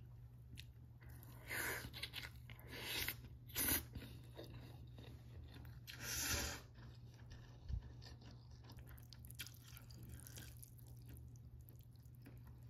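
A person chewing and eating food, faint, with a few louder bursts of eating noise; the loudest come about two, three and a half, and six seconds in.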